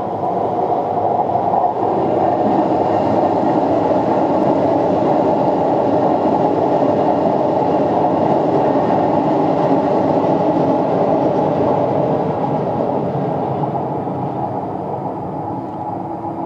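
Four CFM56 jet engines of an Airbus A340-300 on the runway, a loud steady roar that eases off over the last few seconds.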